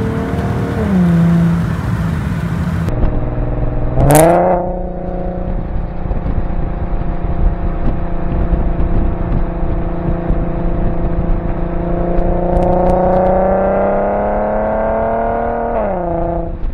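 Infiniti Q50's exhaust with the mufflers removed, heard while driving. The engine note drops about a second in, then a quick rising rev blip about four seconds in as the automatic transmission rev-matches a downshift. The note then holds steady, climbs slowly as the car accelerates, and falls quickly near the end.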